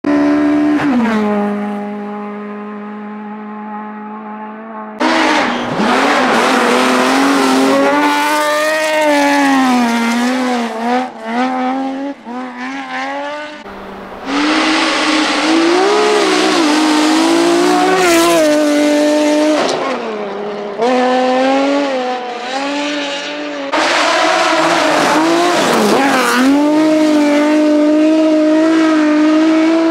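BMW rally car engines at full throttle, their pitch climbing and dropping again and again as they rev through the gears and lift off. The sound is heard in several clips that cut abruptly from one to the next. In the first few seconds a falling rev settles into a quieter, steady engine note.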